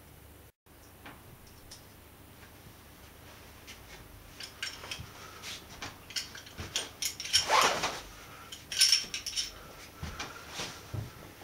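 Small hard objects clinking and rattling as they are handled, starting as scattered clicks and building to two brief, louder flurries about seven and nine seconds in.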